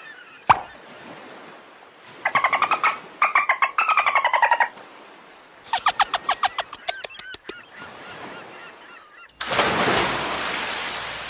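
Goose-like honking calls in rapid, stuttering runs, after a single sharp click. Near the end comes a loud rushing whoosh like a wave that slowly fades.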